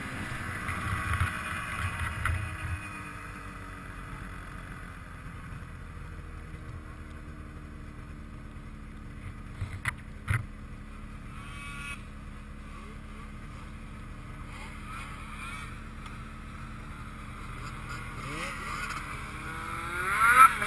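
Snowmobile engines: a steady low hum throughout, with another snowmobile's engine revving up and down, its pitch bending as the throttle changes. That engine grows louder near the end. A couple of sharp knocks come about ten seconds in.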